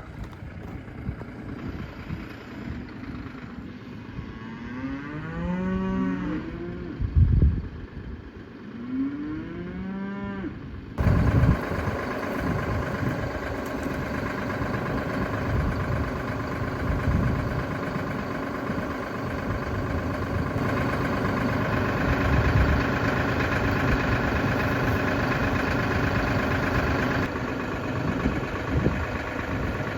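Cattle mooing: two long calls, each rising then falling in pitch. From about a third of the way in, a steady engine drone takes over.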